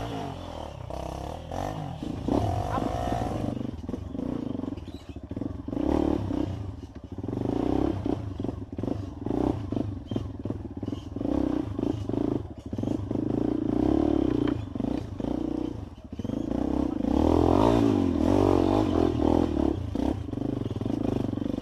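Trail motorcycle engine revving up and down while riding a rough dirt trail, with clattering knocks as the bike bounces over the ground.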